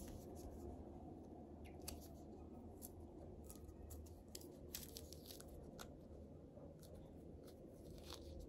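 Fingers peeling a mandarin orange: faint, scattered small tearing and crackling ticks of the rind and pith being pulled away, over a low steady room hum.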